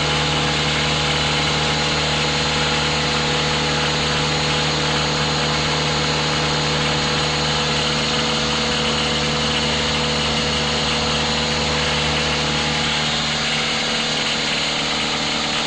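A motor or engine running at a steady speed, one constant drone that holds the same pitch throughout.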